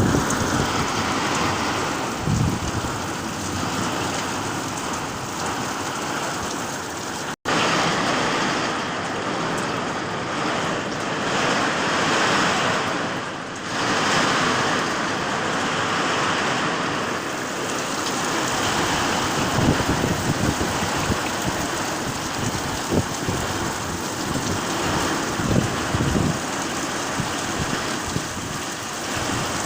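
Heavy downpour and squally wind making a steady rushing noise, with gusts buffeting the microphone in irregular low thumps. The sound cuts out for an instant about seven seconds in.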